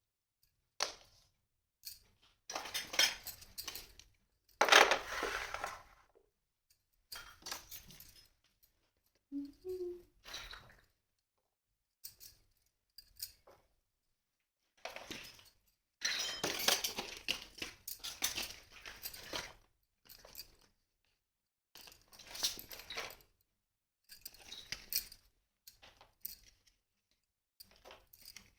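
Small plastic toy kitchen-set pieces and their packaging handled by hand: short bursts of rustling, clicking and clinking, separated by silences.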